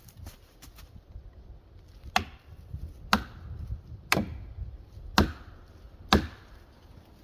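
Five heavy chopping strikes into wood, about one a second, each followed by a short ring.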